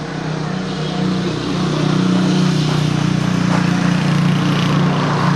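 An engine running steadily with an even, low drone over a background of street traffic noise.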